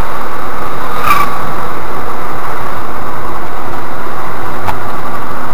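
Steady running noise of a Škoda Rapid 1.6 MPI car heard from inside the cabin, picked up very loud by a dashcam microphone. Two brief clicks, about a second in and near the end.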